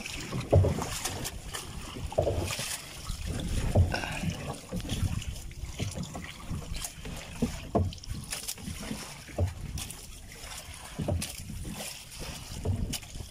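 Irregular knocks and thumps on a small wooden outrigger boat with bamboo outriggers as the crew move about and work from it, over a steady hiss.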